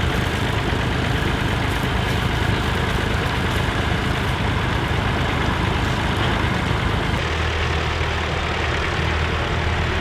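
Vintage tractor engines running steadily under load while pulling ploughs through stubble. About seven seconds in, the sound shifts to a closer, deeper engine hum.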